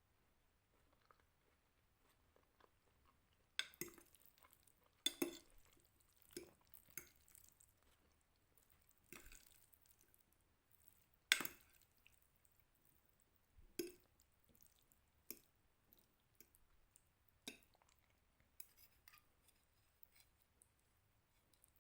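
Cutlery clinking and scraping on a glass Pyrex dish as spaghetti is eaten from it: about a dozen short, irregular clinks with quiet between.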